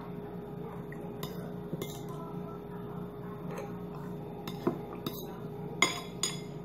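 Spoon clinking and scraping against a ceramic bowl while scooping food: a string of short clinks, the loudest about six seconds in, over a steady low hum.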